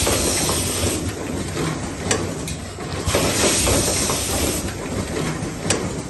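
Automatic power-cord assembly machine running: its pneumatic cylinders hiss in repeated bursts of exhausting air over a steady mechanical clatter. Sharp clicks come twice near the middle and once near the end.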